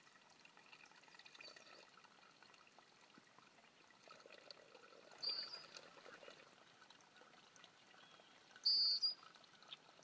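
Faint pond-side ambience with a steady trickle of water, broken by two short high-pitched chirps, one about five seconds in and a louder one near nine seconds.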